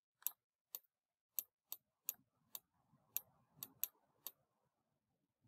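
Faint, irregular light clicks, about ten in all, of a stylus tapping on a drawing tablet while writing by hand.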